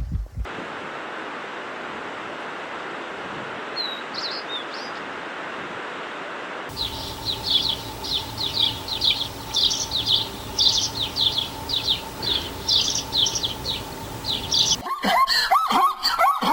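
Small birds chirping, many quick high chirps in a row over a steady outdoor background noise, after several seconds of that background with only a couple of faint chirps. Near the end the sound changes abruptly to louder, lower calls that bend up and down in pitch.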